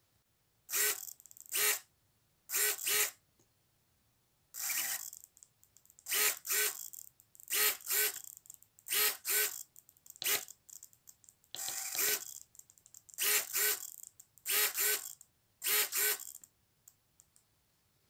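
A row of RC car servos moving their output horns in short bursts of motor whine and gear noise, mostly in quick pairs, about a dozen times, then stopping near the end.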